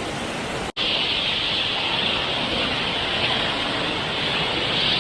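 Steady rushing of flowing water. It breaks off sharply a little under a second in, then comes back louder and hissier.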